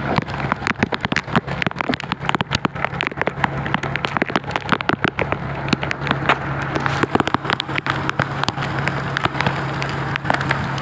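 Heavy rain pelting hard surfaces, a dense patter of sharp drop impacts over a constant hiss, with a steady low hum underneath.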